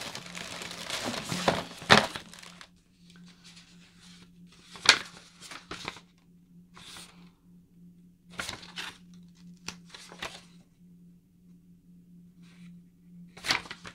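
Paper or plastic packaging being handled: rustling and crinkling for the first couple of seconds, then a few separate short crinkles.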